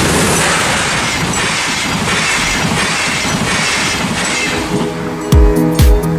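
ÖBB class 1016 Taurus electric locomotive and its double-deck intercity coaches passing at speed, a steady rush of wheels on the rails. About five seconds in, electronic dance music with a thumping kick drum comes in over it.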